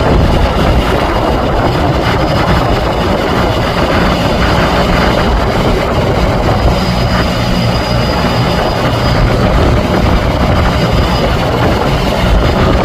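Fishing boat's engine running steadily at a constant speed, loud and unbroken.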